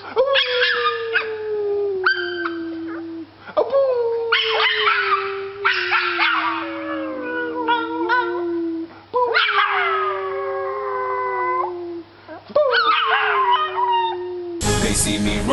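A dog howling, in a series of long calls that each start high and slide down in pitch. Music cuts in near the end.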